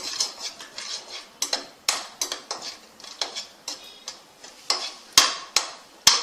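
Metal spoon stirring cashew nuts frying in oil and ghee in a kadai, scraping and clinking against the pan about twice a second in an uneven rhythm, loudest in the last second or so.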